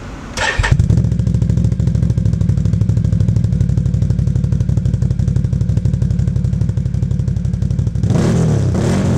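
Can-Am Outlander quad engine through a dual aftermarket exhaust, catching about half a second in after a short burst of starting noise, then idling with an even low pulse. It is revved once near the end, the pitch rising and falling.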